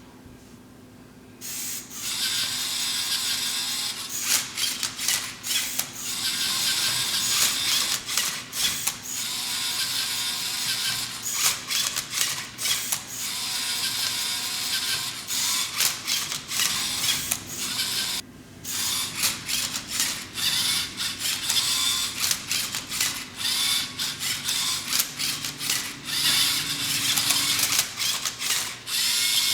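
Lego Mindstorms Rubik's cube solver turning the cube: its motors whir and the plastic cube layers click and rattle in a quick run of moves. It starts about a second and a half in and pauses briefly about two-thirds of the way through.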